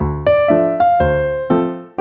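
Background music: a piano melody of single notes struck one after another, each fading before the next.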